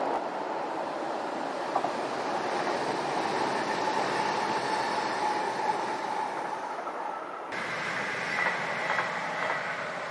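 An X50 Regina electric multiple unit passing: a steady rush of wheel and running noise with a faint steady whine and a couple of clicks. About three-quarters of the way through, the sound cuts abruptly to a Y31 Itino diesel railcar passing, with a high steady tone over the rail noise.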